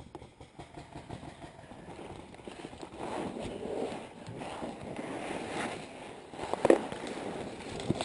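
Footsteps crunching through dry leaf litter and twigs, with stiff brush rustling and scraping past clothing and gear, growing louder about three seconds in. A single sharper crack stands out near the end.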